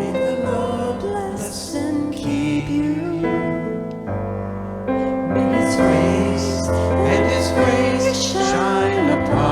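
Worship team playing a slow song: a singing voice over piano or keyboard with a steady low bass.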